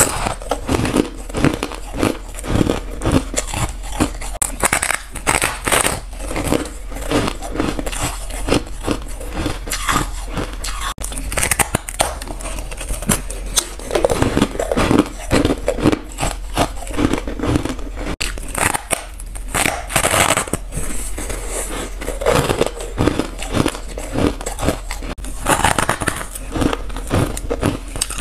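Close-miked biting and chewing of white, frosty freezer ice: a fast run of crisp crunches, a few each second, with louder spells of crunching.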